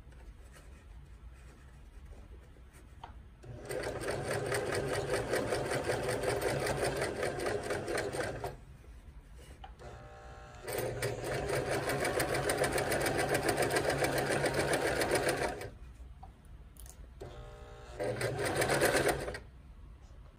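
Domestic electric sewing machine stitching a 1/4-inch seam in three runs of rapid needle strokes: two of about five seconds and a short last one, with brief stops between.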